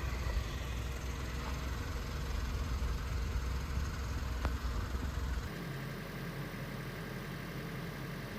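Vehicle engine running with a steady low rumble, which changes abruptly about five and a half seconds in to a quieter steady hum.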